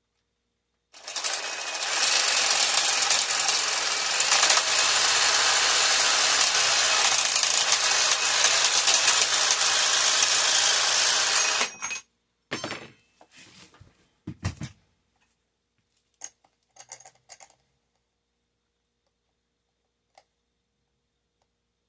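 Cordless drill running steadily for about ten seconds, drilling bus bar stock at low speed. It stops suddenly, then a few short bursts and clinks follow.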